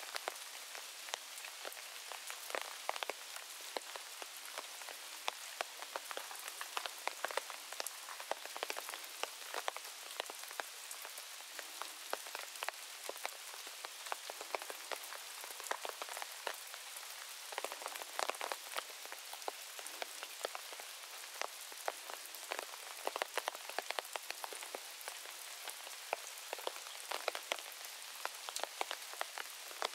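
Steady rain falling: a constant hiss with many sharp individual drops ticking close by.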